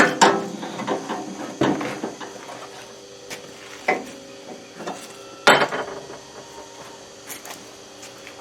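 Irregular knocks and clicks, a few seconds apart, the loudest about five and a half seconds in, over a faint steady hum.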